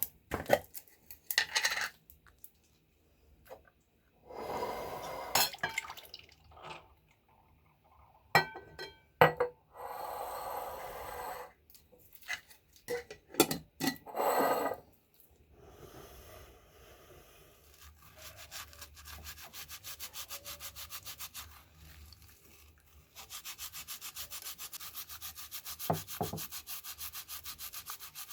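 Hand-work on the metal parts of an old shaving razor. First come a few clinks and short scrapes, then fast, even back-and-forth rubbing strokes, several a second.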